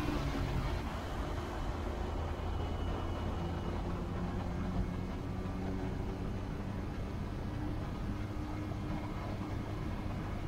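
Vehicle driving: steady low rumble of engine and road noise, with a faint steady hum.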